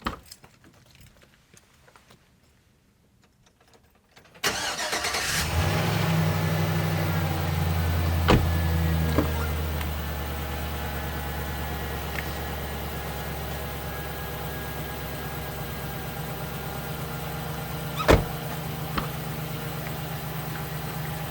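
Car engine starting about four seconds in, running a little faster at first and then settling into a steady idle, with a few sharp clicks.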